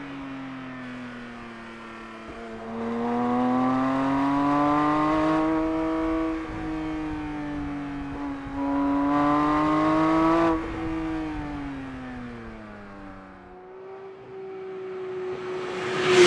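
Porsche 992 GT3 Touring's naturally aspirated 4.0-litre flat-six accelerating in two pulls, its pitch rising each time. After the second pull the pitch falls steadily as the driver eases off, and near the end there is a short, loud burst of noise.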